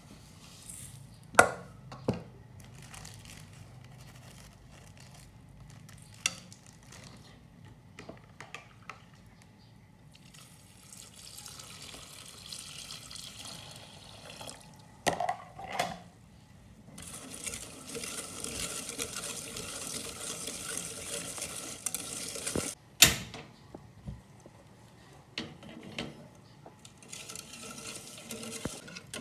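Kitchen work sounds: a few sharp knocks of utensils against a bowl or pot, and three stretches of liquid being poured, a few seconds each, the longest about two-thirds of the way in.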